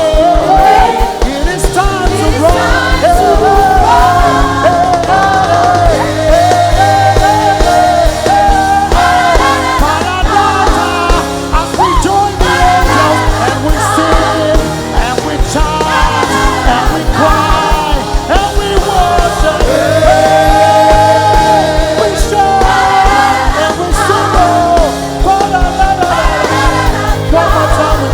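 Live gospel worship music: a lead singer's gliding, ornamented vocal line over a full band with a steady bass and beat.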